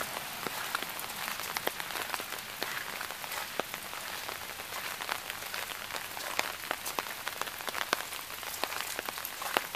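Rain falling steadily, with many individual drops striking close by as sharp ticks throughout.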